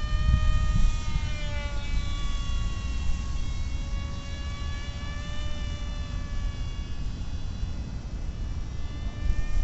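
Small electric radio-controlled model aircraft flying overhead, its motor giving a steady high-pitched whine that dips in pitch about a second and a half in. Low wind rumble on the microphone underneath, heaviest at the start.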